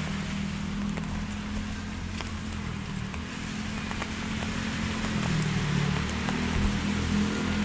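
Drizzle falling as an even hiss with a few faint ticks, over the steady low hum of a motor vehicle engine.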